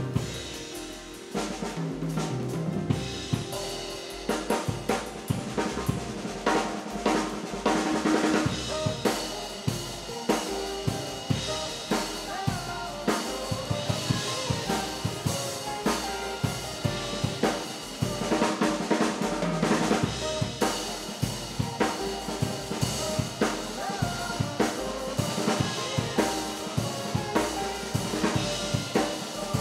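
Jazz drum kit with Meinl Byzance cymbals played busily over a recorded jazz ensemble track in odd time: snare, bass drum and rimshots with ride and hi-hat cymbals.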